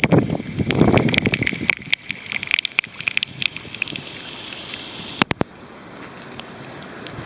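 Wind buffeting the microphone for the first second or so, then heavy rain falling on a flooded street: a patter of sharp drop clicks, two louder ones about five seconds in, settling into a steady hiss.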